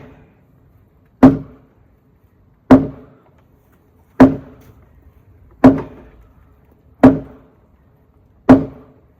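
Six heavy blows struck one after another against a log post, about a second and a half apart, each with a short low ring: the post is being beaten over to plumb it.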